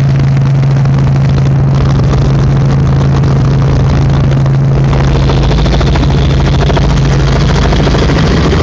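Helicopter in flight heard from inside the cabin: a loud, steady drone with a strong low hum that holds the same pitch throughout.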